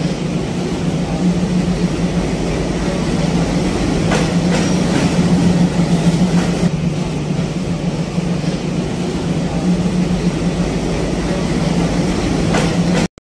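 WDM3D diesel-electric locomotive passing close by with its engine running in a steady drone, then its passenger coaches rolling past, with a few sharp clicks from the wheels on the track.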